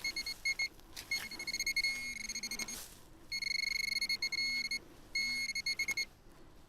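Metal detector sounding over a buried target, here an old copper coin: a high-pitched electronic tone in rapid short beeps for the first couple of seconds, then longer steady tones with brief gaps.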